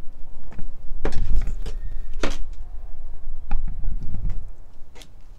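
A few sharp knocks and clicks over a steady low rumble: handling noise on a hand-held phone's microphone outdoors.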